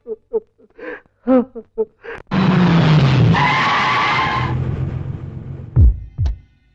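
A voice sobbing in short gasps, then a van's tyres screeching as it brakes hard to a stop, with a squealing whine over the skid. Near the end, two deep thuds about half a second apart, like a heartbeat.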